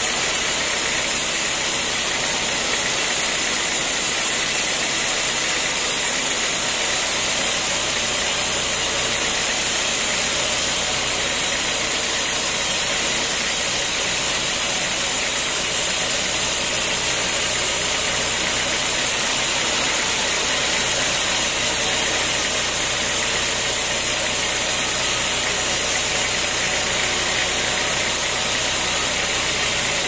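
Band sawmill cutting lengthwise through a hard, heavy acacia log: a loud, steady sawing noise over the hum of the mill's drive, unbroken throughout.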